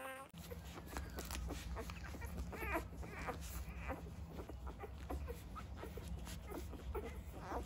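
Newborn chocolate Labrador puppies suckling at their mother: many small wet clicking and smacking noises with several short, wavering high squeaks and whimpers. A steady low hum runs underneath.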